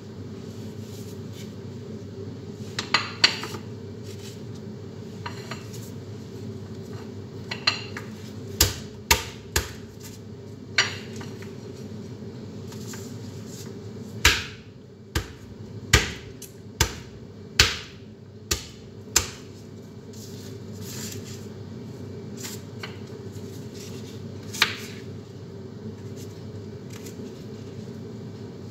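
Kitchen knife chopping bitter gourd on a cutting board: sharp, irregular knocks, a couple early, a run of about ten in the middle and one more near the end, over a steady background hum.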